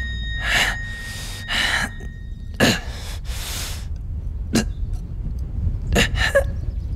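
A man coughing hard several times, with harsh breaths between the coughs, over a low steady hum.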